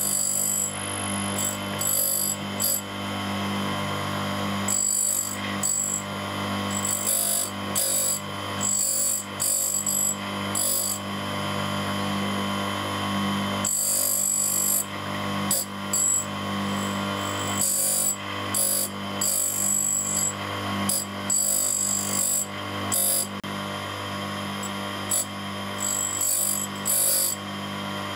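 Grinder motor running with a steady low hum. Many short bursts of high hiss come over it as the grinding wheel cuts the outside of a worn cross-head screwdriver bit, regrinding the tip at a 60-degree angle.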